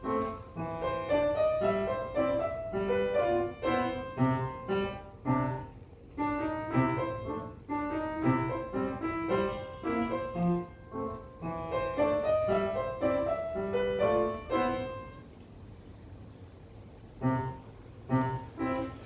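Solo piano music, a melody of single notes and chords that pauses briefly near the end and then resumes with a few notes.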